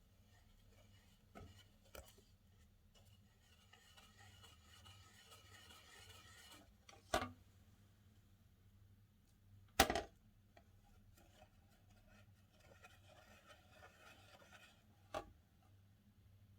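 Slime being worked by hand, giving faint crackling squelches in two stretches with three sharp pops or clicks in between.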